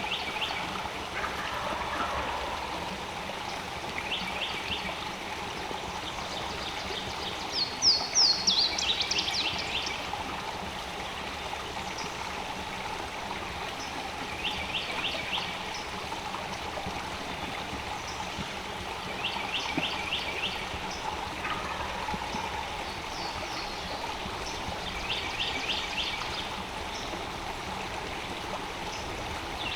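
Steady rush of a flowing stream, with a songbird repeating a short, rapid trill every few seconds and a louder burst of high, falling chirps about eight seconds in.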